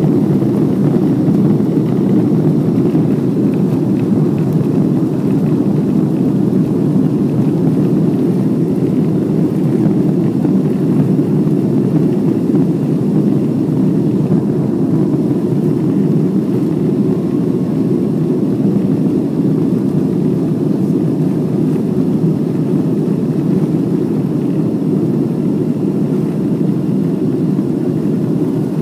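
Deep, steady cabin rumble of a Boeing 777-200 taxiing on its twin jet engines at low power, heard from inside the passenger cabin.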